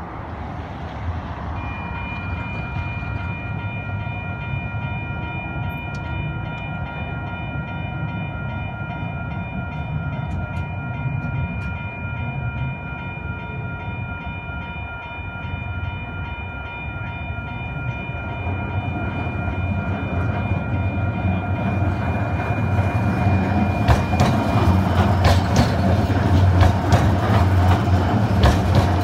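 Level-crossing warning bell starts about two seconds in, a steady ringing chime, and stops a few seconds before the end. Meanwhile two C-Train light-rail trains arrive and pass over the crossing, their wheels rumbling and clattering louder and louder near the end.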